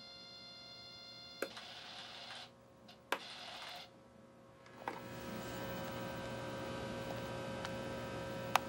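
Small RC servos whirring as the model's flaps move between settings, with sharp clicks of the transmitter switch; a steadier whir sets in about five seconds in. The flap servos run through a go-slow speed limiter, so they move slowly.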